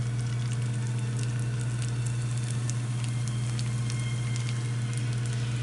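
Lumpia frying in hot oil in a pan: a steady sizzle flecked with small crackles and pops from the oil. A steady low hum runs underneath.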